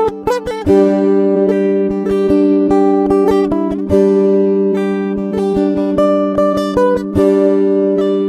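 Instrumental background music: an acoustic guitar picking a quick run of plucked notes over steady lower notes.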